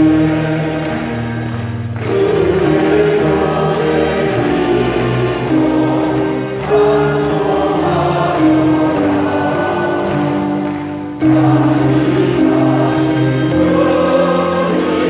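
Large congregation singing a hymn together, in long held phrases with brief breaths between them about every four to five seconds.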